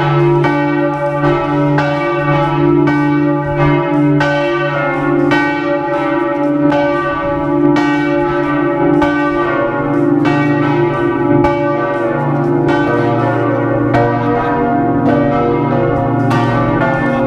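Large bronze church bells ringing in a bell tower, heard loud and close from inside the belfry beside them: repeated clapper strikes about twice a second over a deep, lingering hum, whose lowest note drops about halfway through as another bell takes over.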